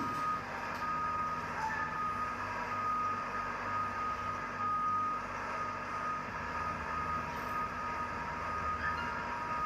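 A vehicle reversing alarm beeping over and over, over the steady low hum of a running engine.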